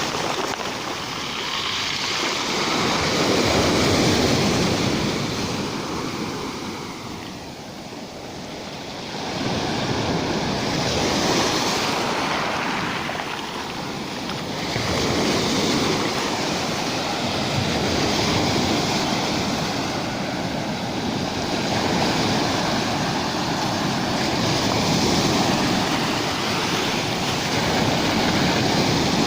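Rough sea with waves breaking on the shore, the surf swelling and falling back every several seconds.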